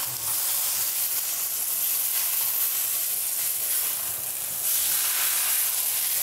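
Thick bone-in ribeye sizzling steadily as it sears over high heat in a cast iron skillet, the crust browning. The sizzle gets a little louder about two-thirds of the way through, as the steak is lifted and moved in the pan.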